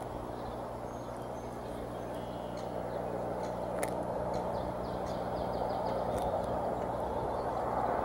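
Steady low rumbling noise with a faint electrical hum under it, growing a little louder about halfway through. A few faint high chirps and ticks sound over it, including a sharp click near the middle.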